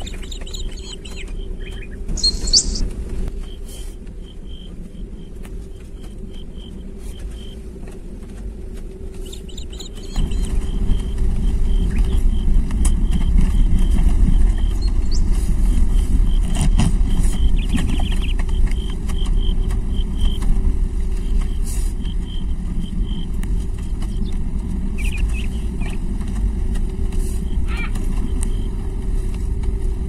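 Car driving slowly on a rough dirt forest track, heard from inside the cabin: a steady low engine and road rumble that grows louder about ten seconds in. Crickets or frogs trill faintly behind it, and a brief high chirp comes near the start.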